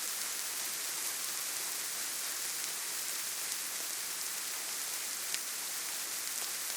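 Steady rain, an even hiss that is brightest in the high range, with scattered drop ticks and one sharper drop about five seconds in.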